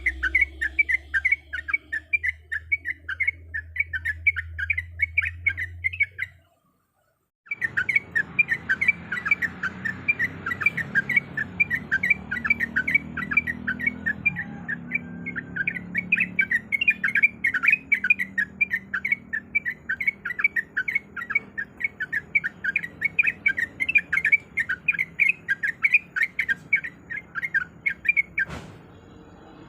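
Yellow-vented bulbul (trucuk) calling in a fast, chattering run of short notes, about five a second, with a break of about a second some six seconds in, and stopping shortly before the end.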